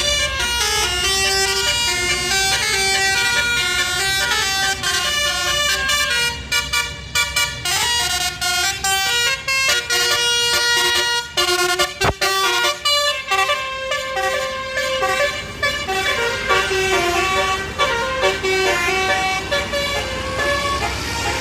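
Bus telolet basuri horn, a multi-tone musical air horn, playing a long tune of stepping notes over the steady rumble of the bus and road traffic. A single sharp click comes about halfway through.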